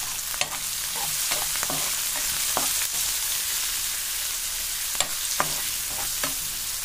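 Chopped onions and garlic sizzling in hot oil in a pan as a steel spoon stirs them, with short clicks and scrapes of the spoon against the pan every second or so.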